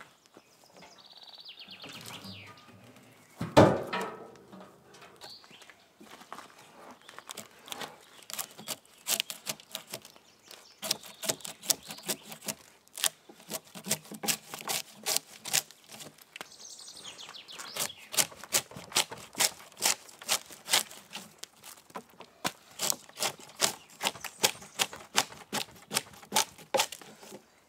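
A heavy thump about three and a half seconds in, then a long run of quick, irregular cracks and scrapes as bark is stripped from a fresh pine log with a hand blade.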